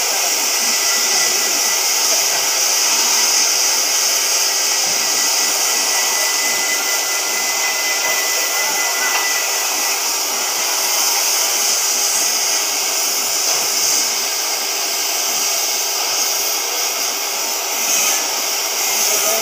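CNC oxy-fuel cutting torch cutting through steel plate: the cutting-oxygen jet makes a loud, steady hiss. A faint high whine fades out about halfway.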